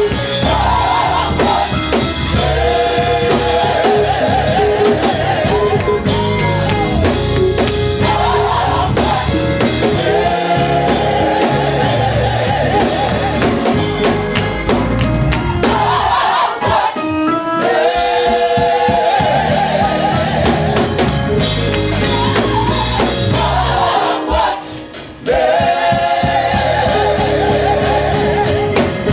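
Gospel music from a church band: voices sing repeated phrases over drum kit and bass. The music briefly drops near the end, then comes back in.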